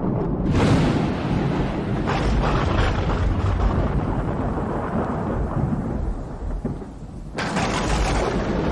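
Thunder from a dry thunderstorm: a sharp crack about half a second in rolls into a long low rumble, and a second crack comes near the end.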